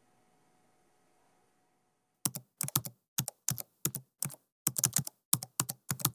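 Keyboard typing sound effect: a quick, uneven run of sharp key clicks, about four a second, starting about two seconds in after a faint hum cuts out.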